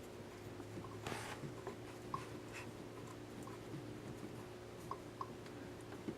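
Faint scraping and scattered small clicks of hand work on the engine as the old lift pump is taken off, over a steady low hum.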